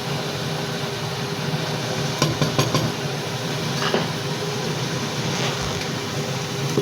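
Spoon clinking and scraping in a pot as dry fruits and nuts are stirred into carrot halwa: a quick run of clinks about two seconds in, and single knocks near four and five and a half seconds. A steady hum runs underneath.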